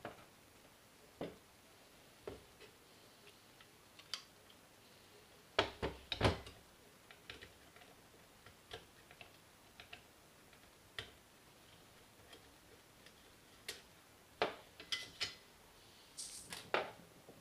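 Scattered clicks, taps and knocks of small plastic and metal parts being handled as an ASG Scorpion EVO airsoft gun is taken apart, with a cluster of louder knocks about six seconds in and another near the end.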